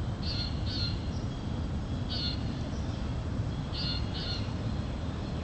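Goose honks: five short calls, two of them in quick pairs, over a steady low rumble.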